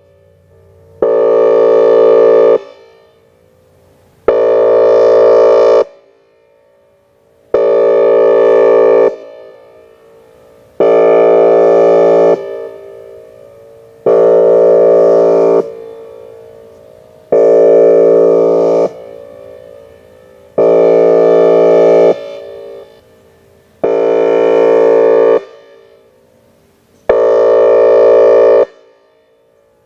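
Whelen Vortex R4 electronic outdoor warning siren sounding its Air Horn signal: about nine loud horn blasts of steady pitch, each about a second and a half long and repeating roughly every three seconds, with an echo fading away in each gap.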